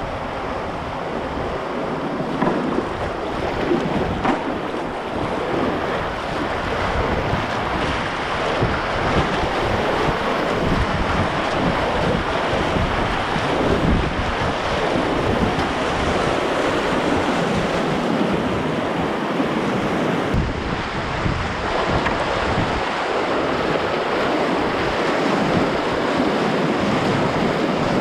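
Whitewater rapids of a river in spring high water, rushing and splashing around a kayak as it runs through the waves.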